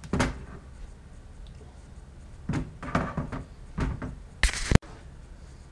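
Metal CNC gantry plates with stepper motors bolted on being handled and set down on a worktable: a knock just after the start, a cluster of clunks and knocks in the middle, then a short, loud burst of noise that cuts off suddenly.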